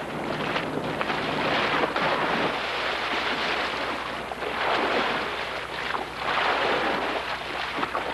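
Water splashing and churning in uneven surges, a swimmer struggling in dock water.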